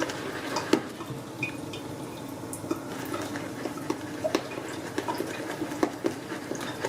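Synthetic shaving brush whipping shave soap lather in a bowl: steady wet swirling with many light clicks and taps. The lather is being worked after a few drops of water were added to bring up its shine.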